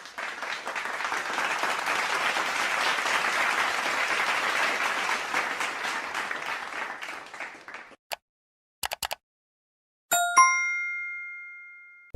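A crowd applauding for about eight seconds, then stopping. After a few short clicks, a bell dings once and rings out, fading over about two seconds.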